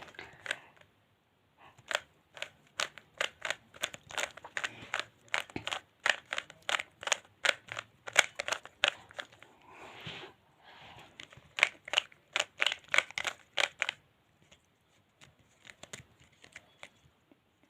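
Layers of a plastic 3x3 Rubik's cube being turned fast: a quick run of sharp clicks and clacks, several a second, stopping about three-quarters of the way through, then turning more softly near the end.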